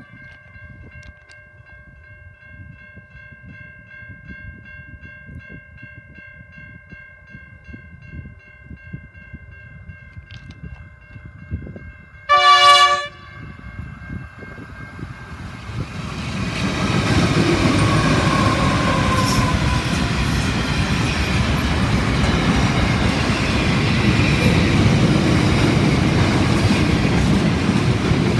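Freight train with NR-class and 93-class diesel locomotives approaching and passing. A short, loud horn blast comes about halfway through. The locomotives' rumble then builds and the wagons roll by with a steady clatter of wheels on rail.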